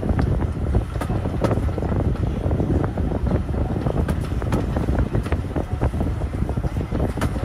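Heavy wind buffeting on the microphone, a loud low rumble, with many irregular sharp clicks and rattles through it.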